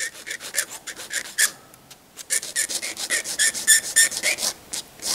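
Needle file rasping in short, light strokes, about four to five a second, taking a leftover moulding nub off the corner of a small plastic model part. The strokes break off briefly about a second and a half in, then carry on.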